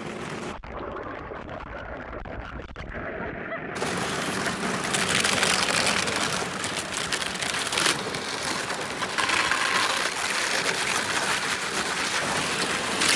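Thin overnight skim ice on a lake crackling and tinkling as a canoe's hull breaks through it, a dense continuous crackle like rain. It starts duller and swells much brighter about four seconds in.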